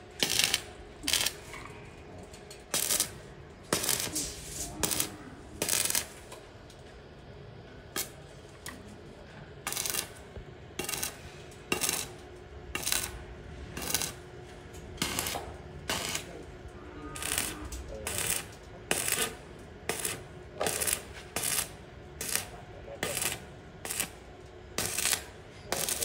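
Stick (arc) welding on thin galvanized steel channel: a run of short arc bursts, about one a second, as each joint of the frame gets a quick tack weld.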